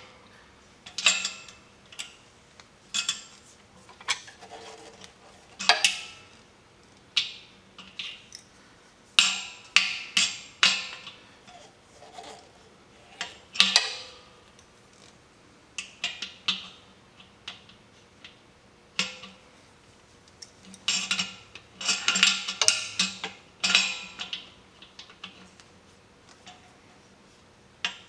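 Adjustable wrench clinking and clanking against a threaded valve fitting on an air compressor as it is turned tight, in irregular bursts of sharp metallic knocks with short ringing and pauses between.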